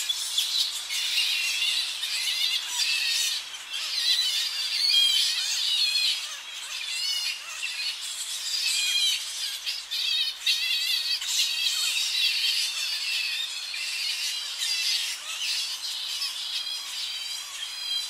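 A colony of Tonga flying foxes calling at the roost: a dense, continuous chorus of high, wavering squeals and squawks from many bats overlapping, some close and some further off.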